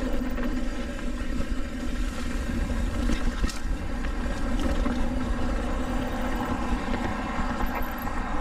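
Wind buffeting the camera microphone and the knobby tyres of a Trek Roscoe 8 hardtail mountain bike rolling over a dry dirt trail, a steady rushing rumble. A few sharp clatters from the bike come about three seconds in and again later.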